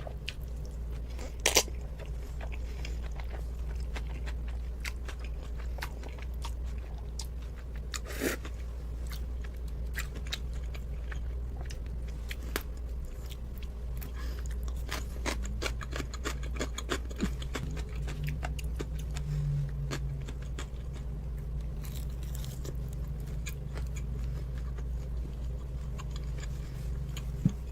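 A person chewing and eating black bean noodles, with scattered small mouth clicks and two sharper clicks about a second and a half and eight seconds in, over a steady low hum.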